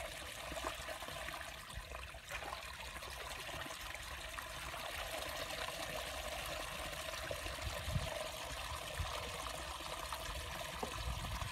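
Water trickling and dribbling steadily through mud and shallow water at a dug-out fish trap.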